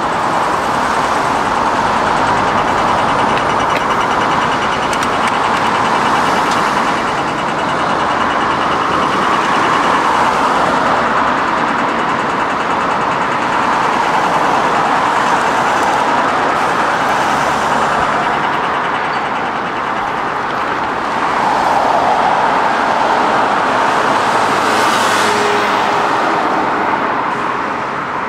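Steady city road traffic, cars and trucks passing in a continuous rush that swells and eases every few seconds.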